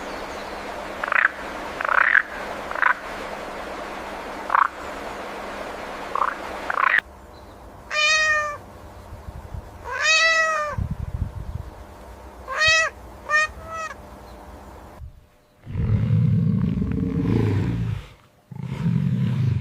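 A series of animal calls. For the first several seconds there are short sharp calls over a steady hiss. Then four pitched calls rise and fall, and low rough sounds come near the end.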